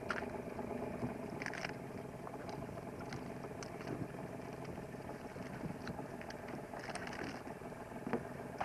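A red king crab being broken apart and gutted by hand: scattered clicks, cracks and scrapes of shell and meat, over a steady low hum.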